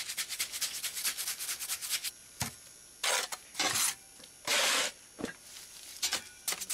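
Gritty scraping of fresh rapid-set mortar being worked and pressed into a concrete patch. It starts as a run of quick, short scrapes, then three longer, louder strokes in the middle, and quick scrapes again near the end.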